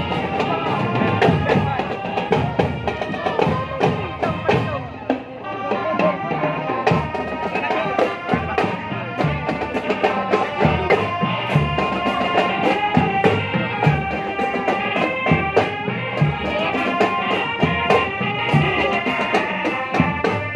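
Marching drum band playing: a drumline beat under sustained melody notes. The drums drop out for a couple of seconds about five seconds in, then come back strongly.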